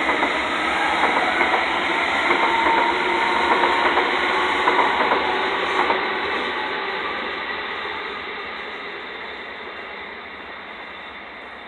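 A TfL Rail class 345 electric multiple unit pulling away from the platform, its wheels clicking over the rail joints. About six seconds in the clicking stops and the train sound fades steadily as it moves off.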